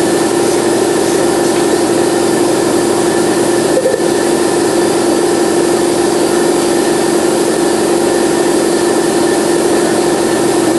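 Steady, loud mechanical hum of a running motor, holding one even drone without change.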